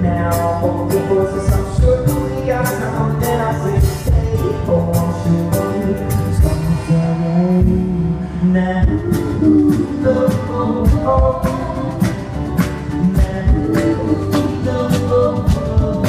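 Live band playing a song: a sung vocal over acoustic guitar, keyboard and a steady drum beat, heard through the stage sound system.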